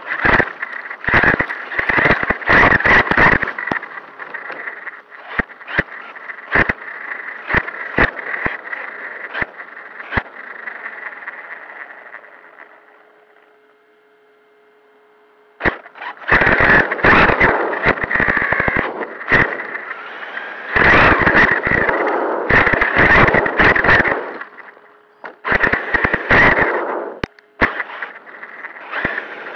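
Traxxas Sledge RC monster truck heard from its own onboard camera, driving in spurts: bursts of drivetrain whine with clatter and rattling from the chassis and tyres as it accelerates and lets off. The noise fades out about twelve seconds in while the truck sits nearly still, then picks up again in short, sharp bursts at about fifteen seconds.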